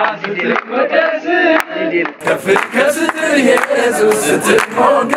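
A group of men singing and chanting together, with hand clapping.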